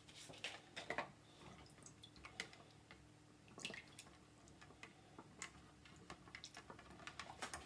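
Near silence with faint, scattered small clicks and light taps from hands working over a wooden cutting board.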